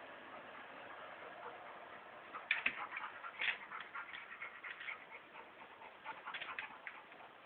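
Two dogs play-wrestling: bursts of quick clicking and scuffling start about two and a half seconds in and come again near the end.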